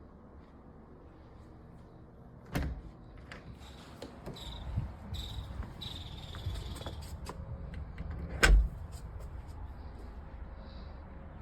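A door fitted with a smart lock being handled: clicks and knocks, with a sharp knock about two and a half seconds in and a loud thud about eight and a half seconds in.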